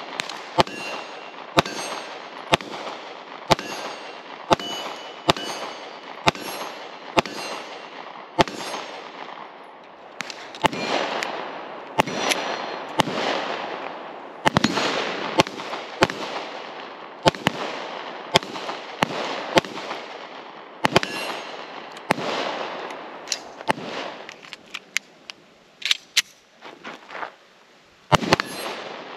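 Sig Sauer P365XL 9mm pistol fired in a steady string, about one shot a second, each sharp report followed by a long echo. Near the end the firing thins to a few fainter shots, then picks up again.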